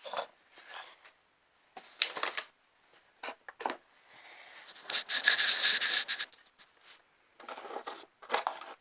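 Handling noises of objects being moved and set down on a table: scattered short scrapes and knocks, with a longer rustling scrape in the middle.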